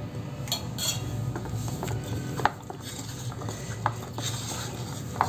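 Hands mixing a crumbly pearl-millet, green-gram and jaggery mixture with ghee in a bowl, with a few sharp clinks and knocks against the bowl.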